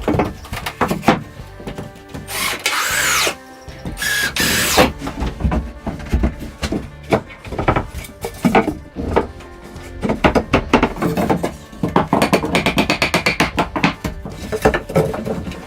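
Hand tools working wood: noisy rasping or scraping strokes and knocks, with a fast run of taps about twelve seconds in.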